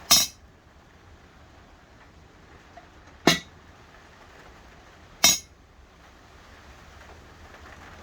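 Three sharp clinking knocks: one at the start, one about three seconds in and one about two seconds later, each ringing briefly.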